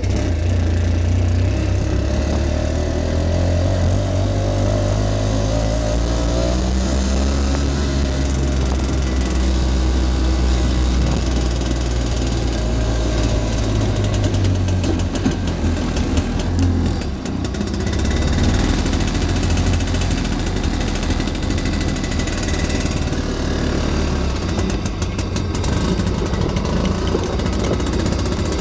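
Beaver amphibious ATV's Villiers 9E two-stroke single-cylinder engine running while the machine is driven, its pitch rising and falling with the throttle. The note drops briefly about two-thirds of the way through, then picks up again.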